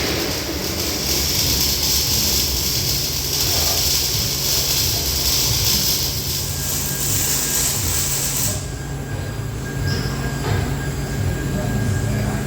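TIG welding arc hissing steadily over a low machine hum, the hiss cutting off sharply about eight and a half seconds in as the arc is broken.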